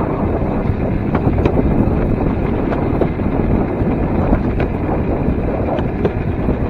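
Wind buffeting the microphone over the steady rumble of a small electric rail cart's steel wheels rolling along old track, with a few faint clicks.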